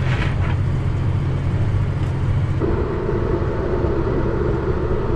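John Deere tractor engine running steadily under way. About two and a half seconds in, a second, higher steady hum comes in and holds.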